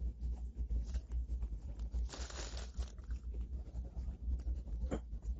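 Clear plastic sandwich wrapper crinkling and tearing as it is handled, with a louder burst of crinkling about two seconds in and a sharp click near the end, over a constant low rumble.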